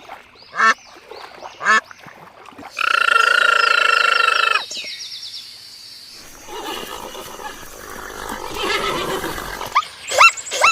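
A run of different animal calls: a few short yelps, then a loud, steady, held call lasting nearly two seconds, then a rougher, noisier stretch, and short yelps again near the end.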